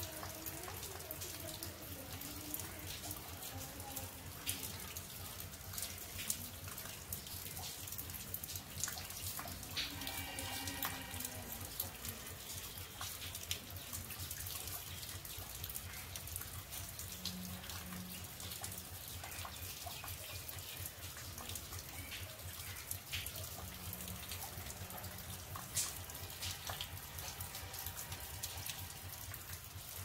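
Rainwater pouring steadily off a terrace in light rain, with scattered drips and drops clicking throughout.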